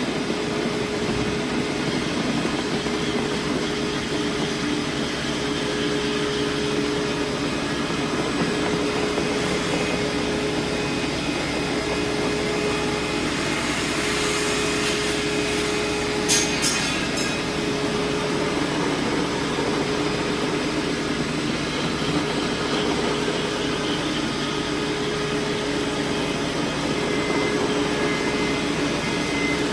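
Levetec Avenger planetary floor grinder running steadily, grinding down peaked cold joints in a concrete floor: a constant grinding whir with a steady hum. A short burst of sharp clicks comes about halfway through.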